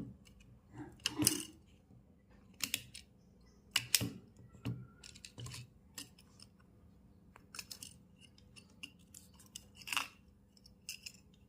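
Small hand tools clicking, tapping and scraping on a repair bench during IC reballing work, in irregular short strokes.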